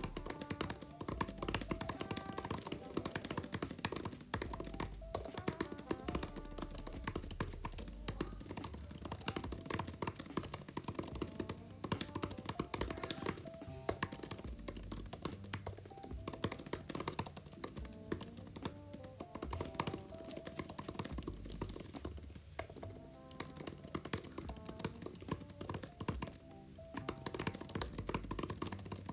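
Fast, continuous typing on an Apple Magic Keyboard for iPad, its scissor-switch keys giving a dense stream of light clicks, with background music playing under it.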